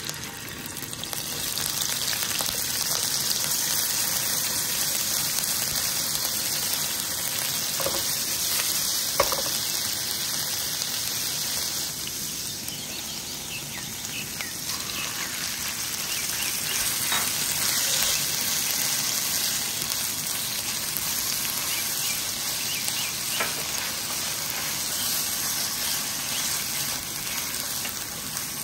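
Ginger-garlic paste and then minced chicken sizzling in hot oil in a frying pan, a steady hiss as they fry and are stirred with a silicone spatula. A few light knocks sound now and then.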